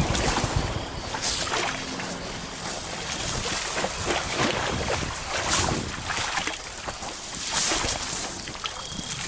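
Elephants spraying mineral dust over their bodies from their trunks: a run of breathy whooshes, about one every second or two.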